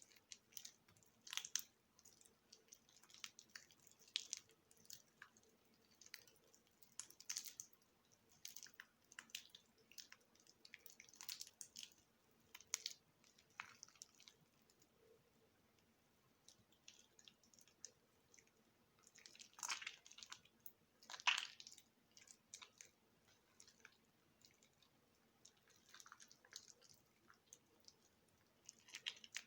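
Mushy bar soap that has soaked in water for a week, crackling and squishing softly as it is worked. The sounds come in short, irregular bits, with two louder squelches about two-thirds of the way through.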